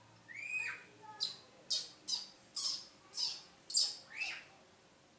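Baby monkey crying: an arched squeal, then a run of six short, harsh, high-pitched screeches about half a second apart, and a second arched squeal near the end.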